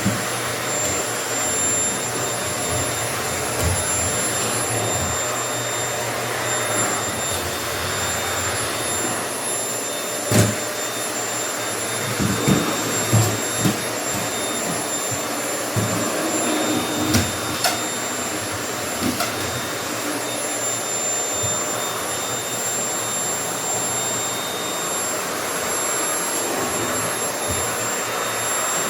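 Vacuum cleaner running steadily while vacuuming a floor, with a constant high motor whine over its rush of air. A sharp knock about ten seconds in and a cluster of smaller knocks a few seconds later.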